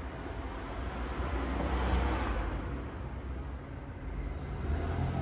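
Street traffic through an open doorway, a steady rush with a passing car that swells and fades about two seconds in.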